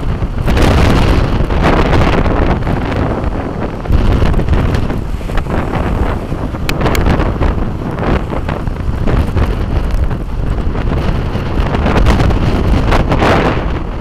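Strong windstorm gusts of about 40–45 mph buffeting the microphone: a loud, low rumbling roar that swells and eases with each gust.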